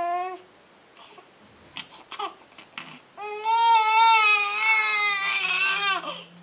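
Newborn baby crying during a heel-prick blood test. A short cry at the start, a pause of about three seconds with small gasps, then one long cry from about three seconds in that turns rough near its end.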